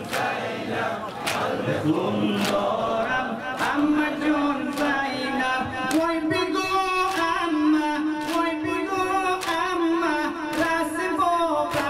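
Mourners' chest-beating in unison, a sharp slap about once a second, under a group of male voices chanting a Muharram noha with long held notes.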